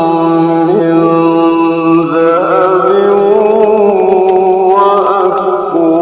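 A solo male voice reciting the Qur'an in melodic tajweed style, holding long ornamented notes with small turns in pitch, over a faint steady hiss of rain.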